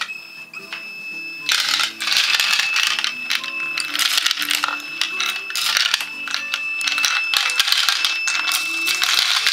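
Homemade bullet collator running: .224 jacketed bullets rattling and clinking in its plastic hopper bowl as the plate turns them, a dense metallic clatter from about a second and a half in. A steady high whine, from the collator's motor salvaged from an old Honda's headlights, runs under it from the start, with background music.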